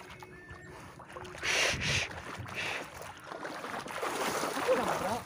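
Shallow water splashing and sloshing at the edge of a tidal pool, with a few louder splashes about one and a half to two and a half seconds in.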